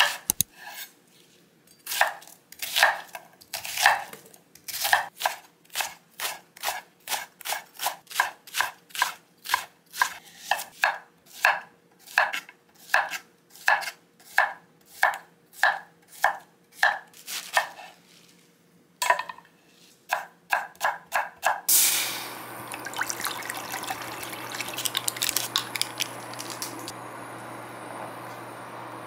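Chef's knife slicing onion and zucchini on a wooden cutting board, a sharp knock of the blade on the board about twice a second, with a short pause near the middle. About three quarters of the way in the chopping stops and a steady hiss with a low hum takes over.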